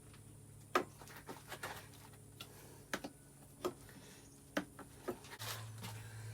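Irregular light clicks and knocks of hand tools and small metal parts being handled while a dirt bike's throttle cable bracket is taken off, over a steady low hum that grows louder near the end.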